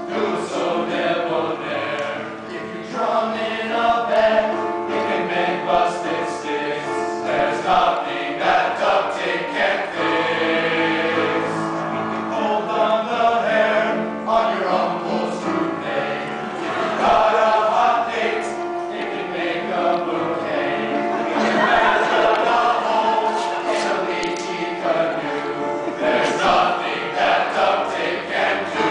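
A high school men's choir singing together in several-part harmony.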